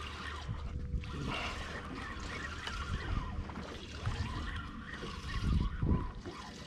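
Water sloshing and trickling against a small fishing boat's hull, mixed with wind noise on the microphone. A louder low rumble for about a second around five to six seconds in.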